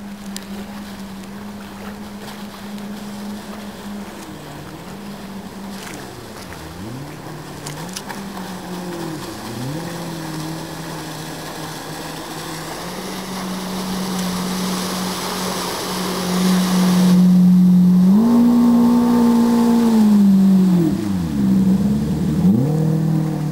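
Yamaha 110 hp four-stroke jet drive of a rigid inflatable boat running at speed, a steady engine note that grows louder as the boat passes close near the end. The pitch drops sharply and climbs back three times as the throttle is eased and reopened.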